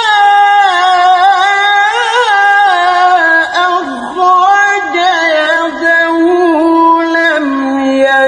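A male Qur'an reciter chanting in the melismatic tilawah style, holding long ornamented notes in a high register with wavering, sliding pitch. The voice dips briefly about four seconds in and again near the end.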